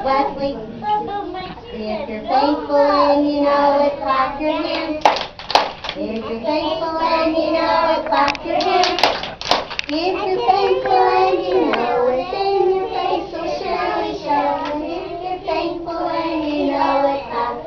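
A group of young children singing a song together, with a few sharp hand claps about five and nine seconds in.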